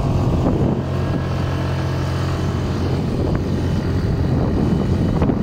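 Motor scooter engine running while riding, with wind rumbling on the microphone. The steady engine hum gives way to the wind rumble about a second in.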